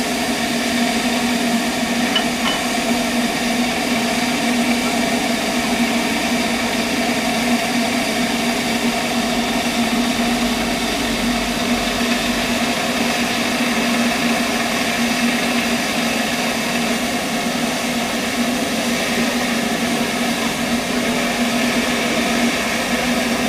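Double Fairlie steam locomotive standing in steam: a steady, unbroken hiss of escaping steam with a low hum under it.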